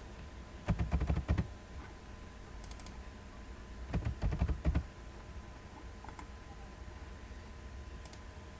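Computer keyboard typing in two short bursts of quick keystrokes, about a second in and again about four seconds in, with a few faint clicks between.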